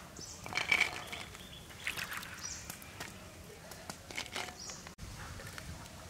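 Outdoor rural background with short bird chirps and a few brief sharp sounds, the loudest about a second in.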